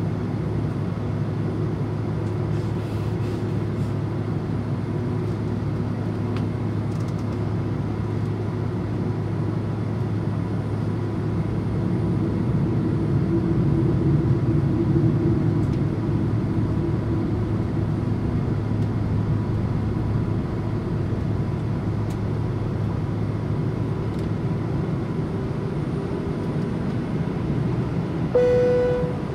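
Cabin noise of a Boeing 767-300 taxiing: a steady low drone from its GE CF6 engines at low thrust and the cabin air system, swelling a little midway. A short clear tone sounds near the end.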